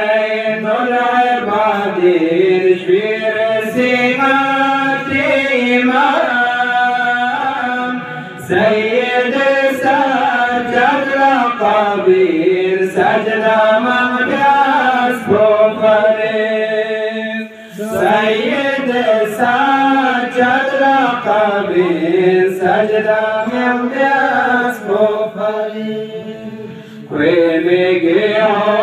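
A man chanting a devotional Balti qasida from a book without accompaniment, in long melodic phrases with short pauses for breath about every nine seconds.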